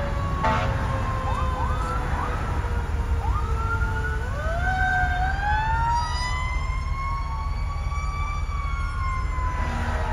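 Fire engine sirens wailing, with more than one siren tone gliding slowly up and down in pitch at once. A couple of short horn blasts sound in the first half second, and a steady horn blast starts just before the end.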